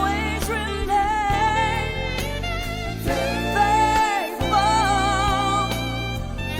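Gospel worship song: a voice sings held notes with vibrato over a steady band accompaniment.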